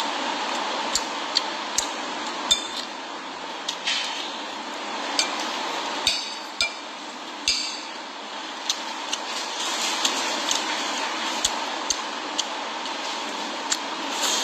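Metal spoon clinking and scraping against a bowl while eating: about fifteen sharp, irregular taps with a few short scrapes, over a steady background hiss.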